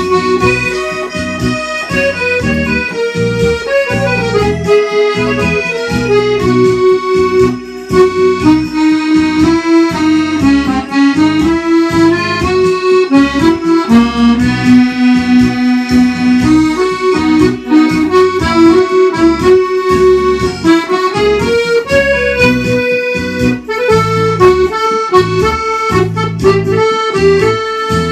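Accordion playing a waltz-like melody over rhythmic bass and chord accompaniment.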